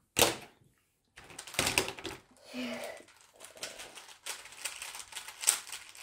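A Rubik's cube knocks down onto a wooden table, then is scrambled by hand: runs of quick clicks and rattles of its plastic layers turning.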